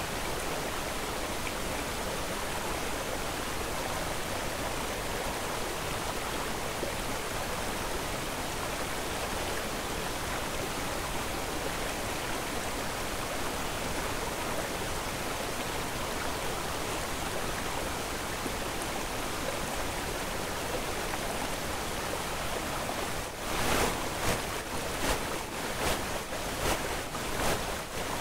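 Steady rushing noise, even from low to high. Near the end it breaks into louder pulsing surges, about two a second.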